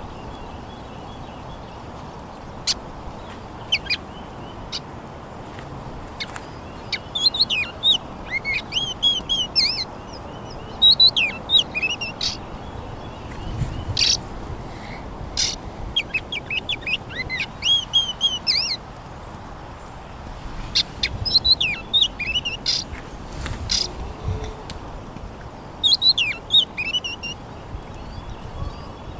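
Garden birdsong: a bird singing short phrases of quick, high, gliding chirps, coming back every few seconds, with scattered sharp clicks and a steady low background noise.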